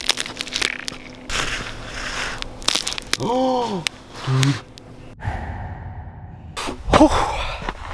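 Boots stepping on a thin sheet of frozen puddle ice, which cracks and crunches underfoot in a run of sharp snaps. There is a brief voiced exclamation about three seconds in.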